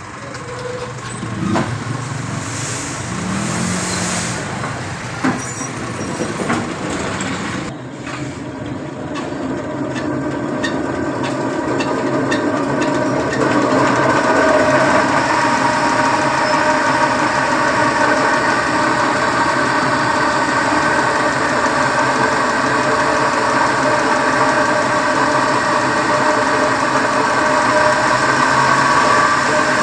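Grain flour mill (atta chakki grinder) and its drive running, a steady mechanical hum with a droning pitch. A few knocks come in the first third, and the hum grows louder and steadier about halfway through.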